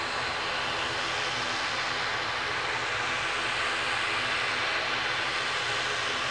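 Fixed-wing aircraft engines running steadily: a continuous hiss with a low hum, swelling slightly midway.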